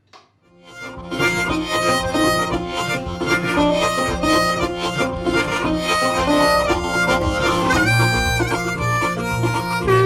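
Background music, a harmonica tune over a steady low accompaniment, coming in about half a second in.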